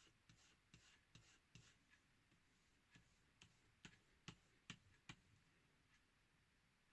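Faint, quick strokes of a kiridashi knife blade being stropped on the smooth side of a leather belt, about two or three strokes a second, with a clearer run of six strokes in the middle.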